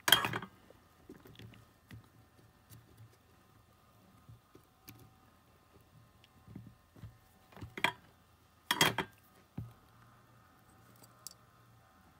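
Handling noise from small bench repair work: scattered light clicks and taps of fingers and metal tweezers on a remote's circuit board and wires. A louder brief scrape comes right at the start, and two more about eight and nine seconds in.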